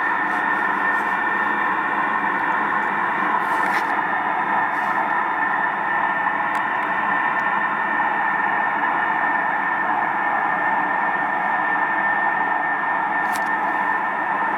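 An unexplained steady drone in the night sky: an even, hissing rumble with a thin, high, steady whine running through it, holding at the same level throughout.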